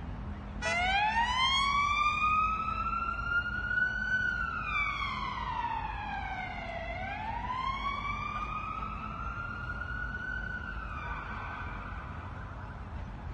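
Emergency vehicle siren in a slow wail: it comes in about a second in, rises in pitch over a few seconds, falls, rises again, then fades out near the end. A steady low rumble of road traffic runs underneath.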